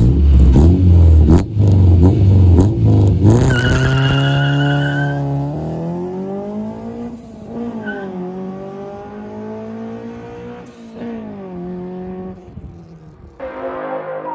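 Honda Ballade VTEC's B16A 1.6-litre four-cylinder engine revving hard in quick blips with sharp cracks. It then pulls away with a high squeal for about two seconds and accelerates through the gears, the pitch climbing and dropping at each shift as it fades into the distance. A short music sting starts near the end.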